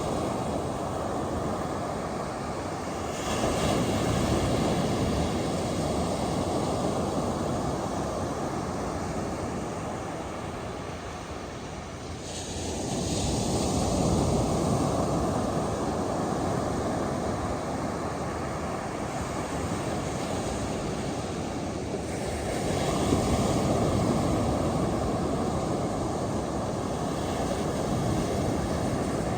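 Ocean waves breaking on a beach: a steady rush of surf that swells three times, about every nine or ten seconds, each surge starting fairly suddenly and then slowly fading.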